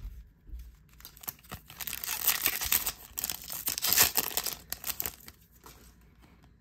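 Wrapper of a Topps Chrome baseball card pack being torn open and crinkled by hand. The crackling runs about four seconds, loudest in two peaks, and dies down near the end.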